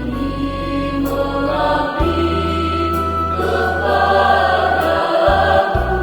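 Choir singing a hymn over instrumental accompaniment, with sustained low bass notes that change chord about two seconds in and again near the end.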